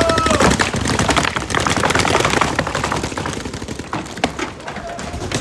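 Many paintball markers firing at once, a dense rattle of rapid overlapping pops. A steady horn tone cuts off about half a second in.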